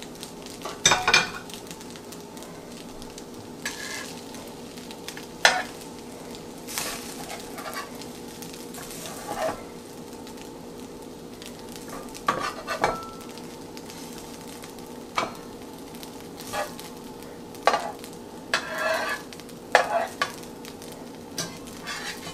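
Ramen noodle patties frying in a nonstick skillet with a steady sizzle. Metal tongs and a slotted spatula scrape and tap against the pan at irregular moments as stray noodles are trimmed off and pushed around.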